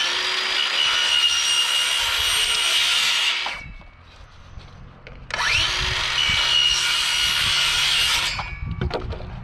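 Cordless circular saw cutting through white PVC pipe in two runs of about three seconds each. The blade's whine rises as it spins up at the start of each run and falls away as it winds down, and a few clicks follow near the end.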